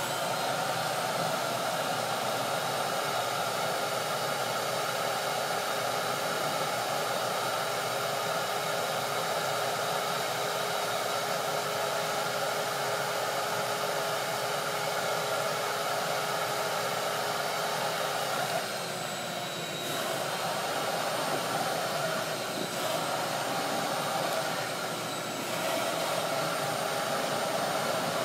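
A small motor-driven machine running steadily with a whine over rushing air, coming up to speed at the start; its pitch and level dip briefly twice, about two-thirds through and again near the end.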